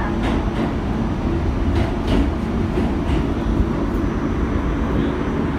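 1975–78 Pullman Standard R46 subway car running through a tunnel, heard from inside the car: a steady loud rumble of wheels on rail, with a few sharp clicks about two and three seconds in.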